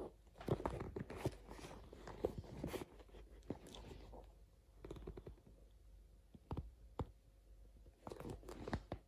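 Hands handling a leather sneaker, fingers rubbing and pulling at the padded collar and lining. There is a dense run of small rustles and crackles for about the first three seconds, then a few scattered clicks and rubs.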